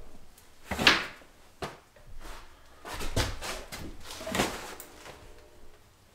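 A heavy cloth work jacket rustling and swishing as it is hung on a hook and handled, in several separate swishes, with a short light knock about a second and a half in.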